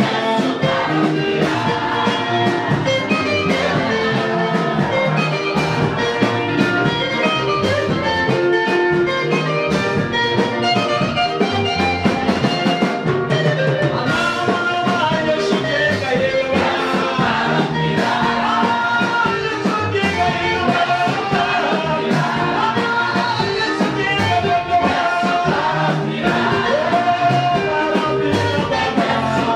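Choir singing lively worship music through microphones over instruments with a steady beat.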